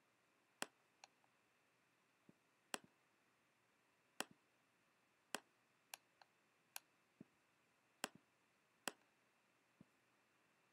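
Computer mouse clicking: about a dozen sharp, faint clicks at irregular spacing, some in quick pairs, over near silence.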